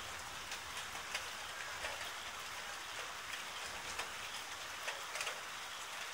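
Steady rain falling, an even hiss with scattered louder drops ticking on a surface.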